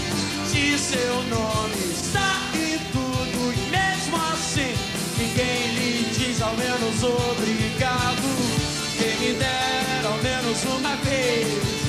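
Live rock band playing, with a man singing lead into a handheld microphone over the instruments and a steady beat.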